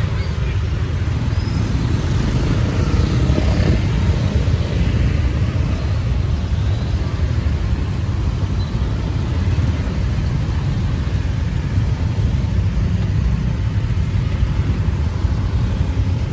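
Street ambience: a steady low rumble of road traffic.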